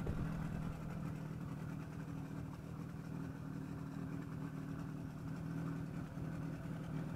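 Small boat's outboard motor running steadily at low speed.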